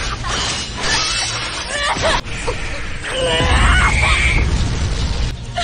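Anime fight-scene audio: background music under a woman's shouts and effort cries, with heavy crash-like impact effects. The longest, loudest cry comes about three to four and a half seconds in.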